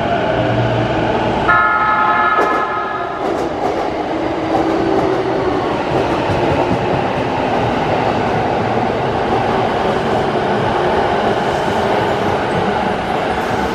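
A JR East E233-series electric train sounds its horn once, a steady blast of about a second and a half, beginning about a second and a half in. Then comes the steady running rumble of the train's cars rolling past the platform.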